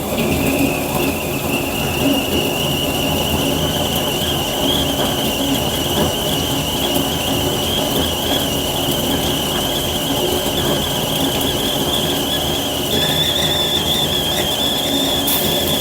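Whistling kettle at the boil: one steady high whistle that slowly creeps up in pitch, then steps up a little higher about thirteen seconds in, over a steady low rushing noise.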